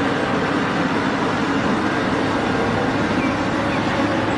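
Cat 6015B hydraulic mining excavator's diesel engine running steadily under load as it swings and dumps a bucket of sand into a dump truck.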